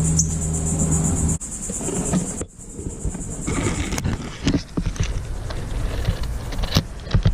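Insects trilling in a steady, finely pulsed high band over a low steady hum. The hum cuts off about a second and a half in, and the trilling stops about halfway through. Scattered knocks and rustling follow.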